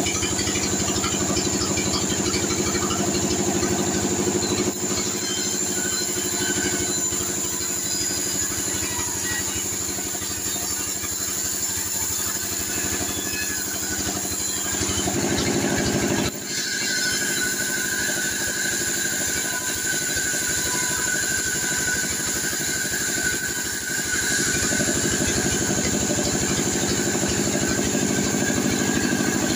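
Band sawmill running, its blade sawing through sengon wood: a steady mechanical drone. There is a brief dip about sixteen seconds in, after which a steady higher whine runs on.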